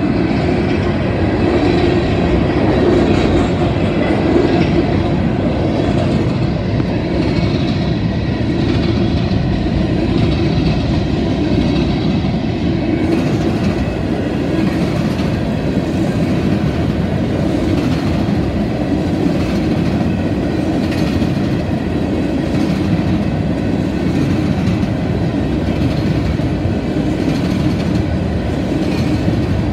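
Union Pacific freight train passing at close range: a locomotive and then a long string of covered hopper cars rolling by, a loud, steady rumble with wheel clacks repeating as the cars go past.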